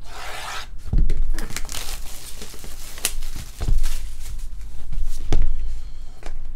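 Plastic shrink wrap being torn and crinkled off a trading-card box, with a few knocks and one sharp click as the box is handled.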